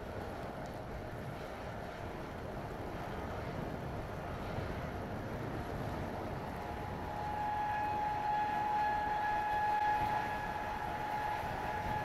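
Blizzard wind buffeting the microphone as a steady low rumble. From about seven seconds in, a steady high machine whine joins and holds, a little louder.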